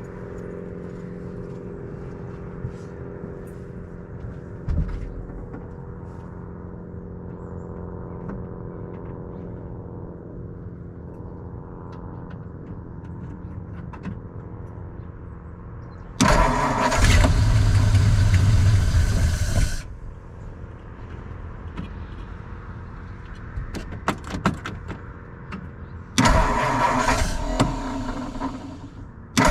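1952 Ford flathead V8 being cranked on the starter twice, about three to four seconds each time, about sixteen and twenty-six seconds in, without the engine catching and running. Before the first attempt there is only a faint steady hum.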